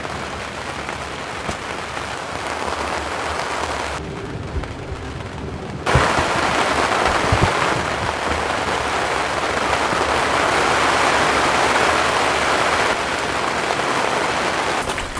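Steady rain falling. It thins out about four seconds in, then comes back heavier about six seconds in.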